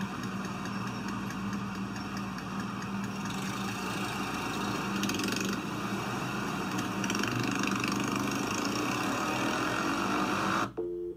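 Motorcycle and scooter engines idling in traffic, rising in pitch near the end as they rev up, then cutting off suddenly.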